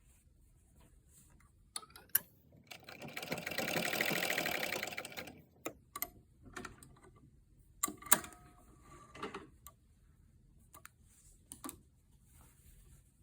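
Domestic sewing machine stitching a short seam in mask fabric: one run of rapid stitches lasting about two and a half seconds that builds up and tapers off, with a few sharp clicks and knocks of the machine and fabric being handled before and after.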